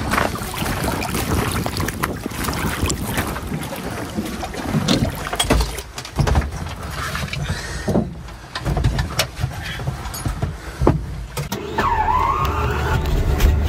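Knocks, footsteps and handling on a floatplane's aluminium float and inside its cockpit, with water and wind noise. Near the end a brief whine dips and rises.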